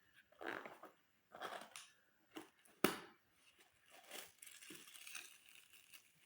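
A parcel's packaging being cut and torn open by hand, in irregular bursts of tearing and crinkling, with a sharp snap a little before three seconds in and softer rustling after it.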